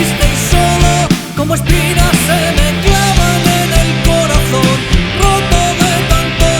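Rock song in an instrumental passage without vocals: band instruments playing chords over a steady drum beat, with a lead melody line bending in pitch above them.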